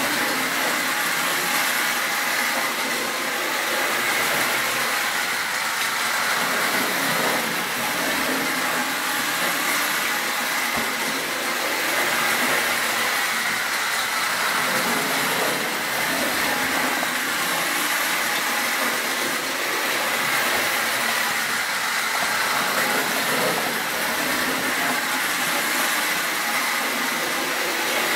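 Distler battery-powered H0 toy train, an E44 electric locomotive model pulling freight wagons, running around the track: a steady whirring of its small electric motor mixed with the rattle of wheels on the rails.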